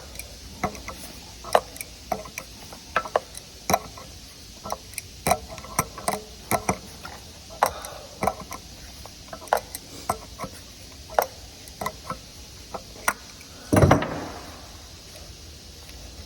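Irregular clicks, taps and knocks of hand tools working on a water heater's pipe fittings, with one louder thump near the end.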